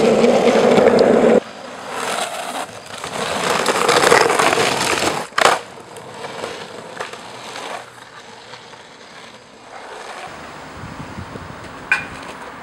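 Longboard wheels rolling and scraping over rough asphalt, loud at first and cutting off suddenly a little over a second in, then building again for a few seconds. There is a sharp clack from the board about five and a half seconds in and another near the end.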